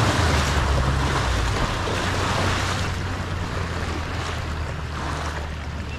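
A small motorboat's engine hums steadily with water rushing and splashing along the hull and wind buffeting the microphone. The sound grows gradually quieter as the boat slows.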